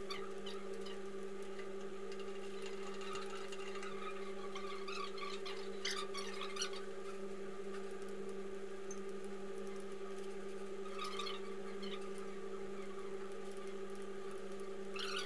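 Computer keyboard typing in several short bursts of clicks, over a steady hum.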